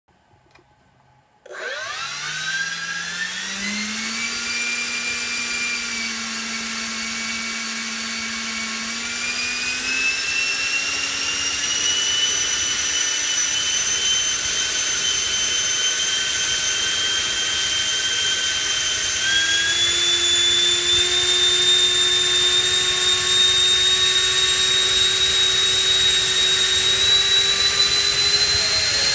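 Change Sun CS10 70 mm electric ducted fan, driven by a Turnigy L2855 2100kv brushless motor, starts about a second and a half in and spools up as the throttle is raised in steps. Its high whine rises in pitch, with jumps about ten and twenty seconds in, as the fan climbs past 23,000 rpm.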